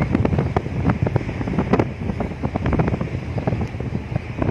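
Wind buffeting the microphone on a moving ship's open deck: a gusty low rumble with many irregular thumps.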